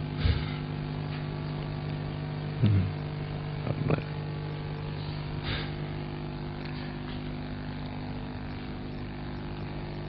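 Steady electrical hum from the stage microphone and sound system, with a few faint, brief noises in the first half.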